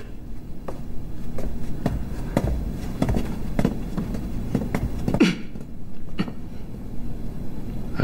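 Footsteps on a hard floor as several people walk away, an irregular run of sharp footfalls.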